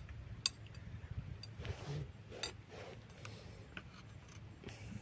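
Faint scattered clicks and light knocks, a few in all, with soft rustling between them.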